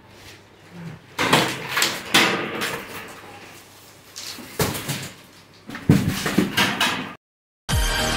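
A window air-conditioner unit being lifted and shifted out of its box and foam packing: several bursts of scraping and knocking. Music with a beat starts near the end.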